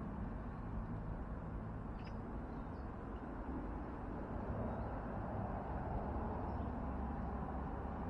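Steady low outdoor background rumble, with a few faint short bird chirps about two seconds in.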